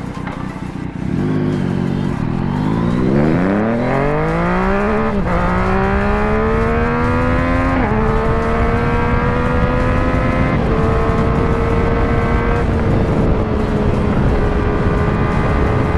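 Yamaha MT-09's 847cc crossplane inline three-cylinder engine through an Ixil Hyperflow full exhaust, pulled hard under full throttle. The revs climb steeply for a few seconds, then drop sharply at each of several upshifts about a second apart or more, and each following pull rises more slowly until the engine settles at a steady speed near the end.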